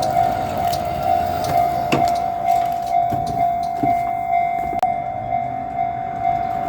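Japanese railway level crossing's electronic warning bell ringing in a steady rhythm of about two strikes a second, over the low rumble of a JR Shikoku 1500-series diesel railcar.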